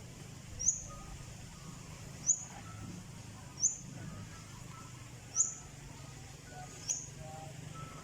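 A bird repeats a short, high chirp about every second and a half over steady low background noise.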